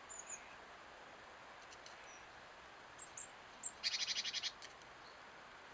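Small garden songbirds calling: a few short, thin, high notes, then a quick rattle of about ten notes about four seconds in.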